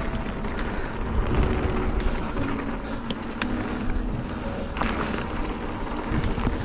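Wind noise on a chin-mounted action camera and mountain bike tyres rolling over a dirt and rock trail, with scattered sharp clicks and rattles from the bike.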